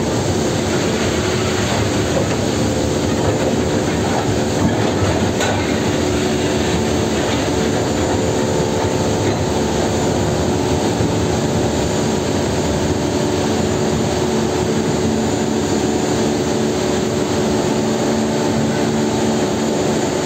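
Steady industrial din of a steel mill bay, a dense rumble with a continuous mechanical hum, and rail cars rolling on the track.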